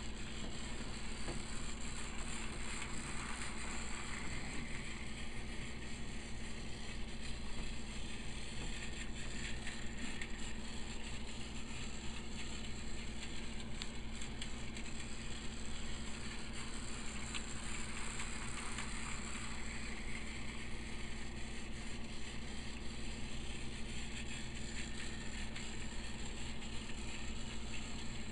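Battery-powered Tomy Plarail Thomas toy train running steadily on plastic track: a continuous gearbox whirr with wheels rattling over the track joints. It gets louder and brighter twice, a few seconds in and again about halfway through, as the train comes round the loop.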